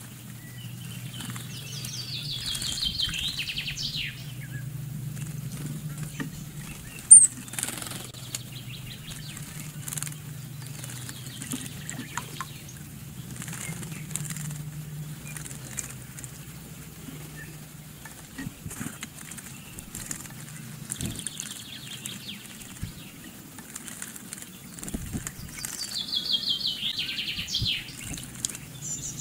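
Great tits and blue tits bathing in a shallow pool, with two spells of rapid wing-fluttering and splashing, one near the start and one near the end, and small scattered splashes and clicks between. A single sharp high-pitched note stands out about seven seconds in, over a steady low hum.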